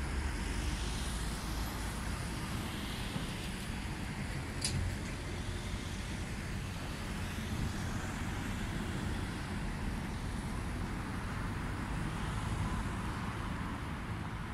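Steady city street traffic noise, with one brief sharp high-pitched sound about five seconds in.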